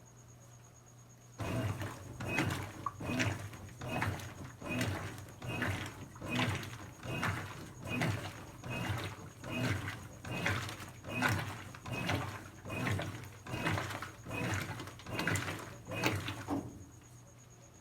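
Brastemp BWK17 17 kg washing machine agitating, swishing the load through the water in even strokes a little more than once a second. The strokes start about a second and a half in and stop shortly before the end, over a low steady hum.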